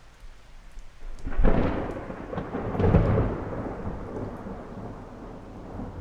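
A thunderclap breaks about a second in and swells to a second peak a moment later, then rolls off into a long fading rumble, with rain falling underneath.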